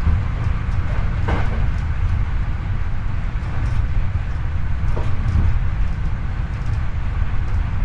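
Running noise of a Hankyu 8300 series electric train heard from the car floor above a bogie: a steady low rumble of wheels on rail with a faint steady whine. Two brief louder rattles come about a second and five seconds in.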